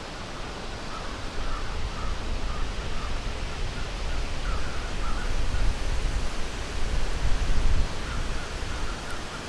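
Outdoor ambience: a steady hiss with an uneven low rumble on the microphone, and a few faint bird calls.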